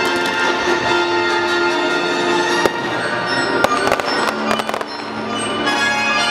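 Aerial fireworks shells bursting, several sharp bangs in the second half, over the show's music soundtrack playing steadily throughout.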